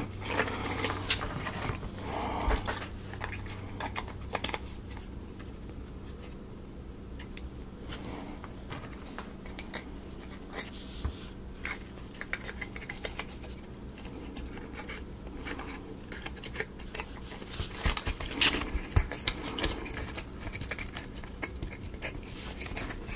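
Laser-cut plywood model-kit pieces being handled and pressed together: scattered small clicks, taps and light scraping of wood on wood as parts are fitted, over a faint steady hum.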